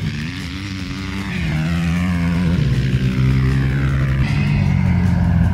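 Off-road vehicle engine pulling away: its pitch climbs over the first couple of seconds, then runs steadily as it grows louder.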